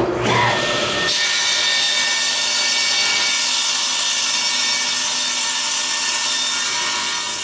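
Table saw starting up, then from about a second in a steady loud whine and hiss as the blade cuts through the template board, easing slightly near the end.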